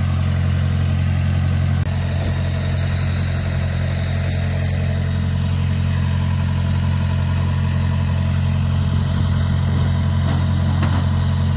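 The engine of a small wooden canal boat idling steadily, a low even drone.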